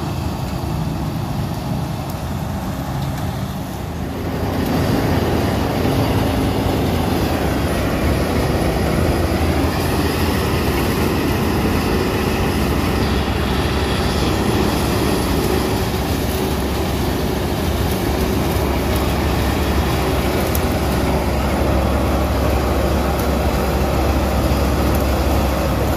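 Malkit combine harvester working through standing paddy, its diesel engine and threshing machinery running with a steady hum and rattle. It gets louder about four to five seconds in.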